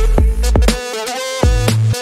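Electronic background music with deep bass notes and a punchy, steady beat.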